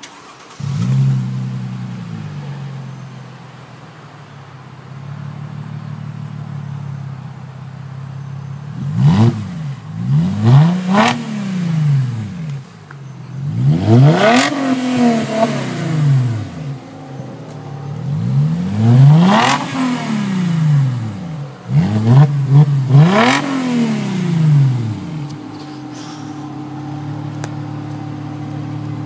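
Mercedes-Benz E350 coupe's 3.5-litre V6 running through a straight-piped exhaust with the mufflers deleted. It idles, is revved several times with each rev climbing and dropping back, then settles to idle again near the end.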